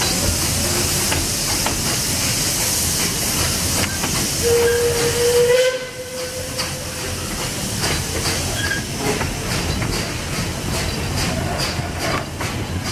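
Narrow-gauge steam train on the move: a loud steam hiss that cuts off suddenly about six seconds in, with one steady steam-whistle note sounding from about four and a half to seven seconds. After the hiss stops, the wheels click over rail joints.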